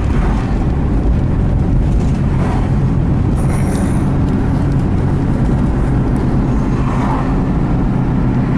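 Vehicle on the move: a steady engine drone over road noise, with the engine's tone holding level from about three seconds in.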